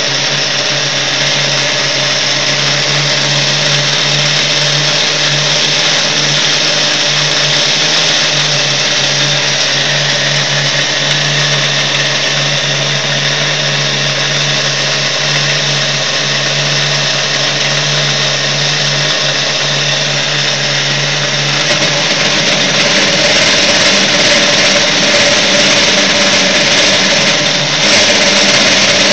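Chinese 7x12 mini-lathe running at about 600 rpm, its brushed motor and gears giving a steady whine and hum, while a hand-fed high-speed-steel tool turns down an acetal (Delrin) workpiece. The sound shifts and grows a little louder about 22 seconds in, and again near the end.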